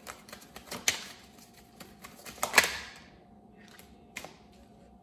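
A tarot deck being shuffled by hand: a run of quick card clicks and flaps, with two louder riffling slaps about one second and two and a half seconds in. It then goes quieter, with one light tap a little after four seconds.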